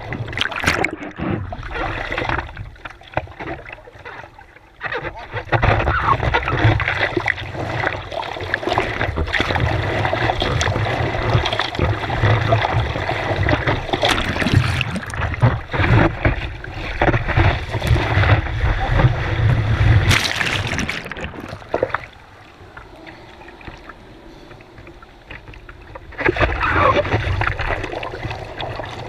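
Sea water rushing and splashing around a surfboard-mounted camera in the surf, with a heavy low rumble through the middle. It drops quieter for a few seconds after the middle, then grows loud again near the end.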